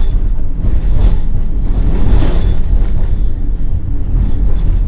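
Inside a moving RV on a rough road: the cabin and its fittings rattle and creak over a steady low rumble of the engine and tyres.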